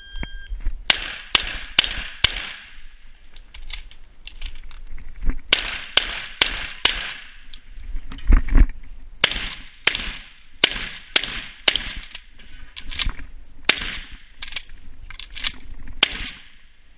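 A shot timer's start beep, then an IPSC practical shotgun course of fire: strings of rapid shotgun shots, each echoing briefly, with short pauses between strings, lasting about sixteen seconds.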